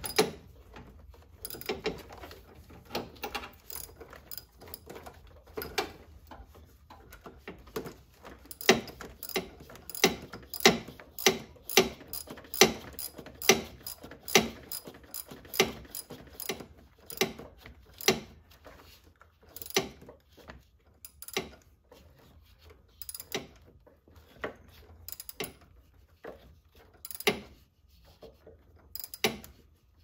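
Wrench clicking in short strokes as it tightens the nut holding the new positive battery cable's terminal on its stud. The sharp clicks come irregularly, and through the middle stretch they are at their loudest, about two a second.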